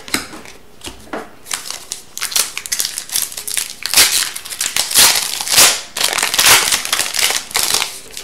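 Crinkling of an Upper Deck hockey card pack's foil wrapper as it is torn open, among the flick and shuffle of trading cards being handled. The crackling is densest and loudest in the middle of the stretch.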